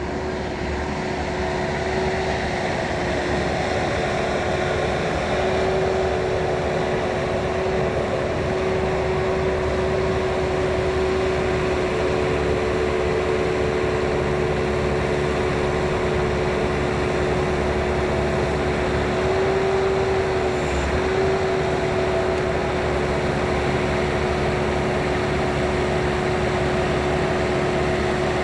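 Bobcat 773 skid steer running steadily, a constant engine drone with a steady hum over it that wavers slightly now and then.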